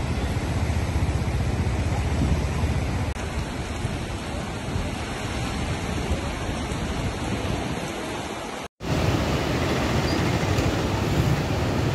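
Swollen, fast-flowing floodwater of the Beas river rushing past, a steady noise without pitch. It drops out for an instant just before nine seconds in and then resumes.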